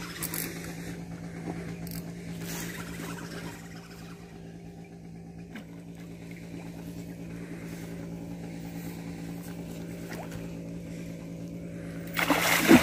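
An engine hums steadily at an even pitch. A short, louder burst of noise comes near the end.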